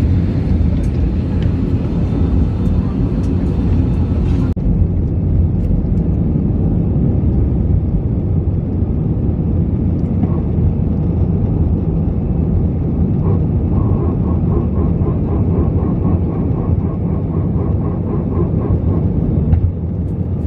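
Jet airliner cabin noise during takeoff: a loud, steady low rumble of the engines and the aircraft rolling, heard from a seat over the wing. The sound changes abruptly about four and a half seconds in, and a faint rapid ticking, about three or four a second, comes in the second half.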